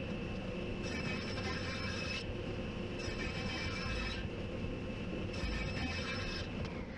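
Table saw running and ripping thin basswood strips: three cuts of about a second each, with the saw spinning freely in between.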